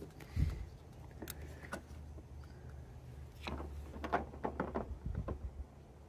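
Light clicks and rustles of test-light and jumper leads being handled and clipped at an underhood fuse box, over a low steady hum.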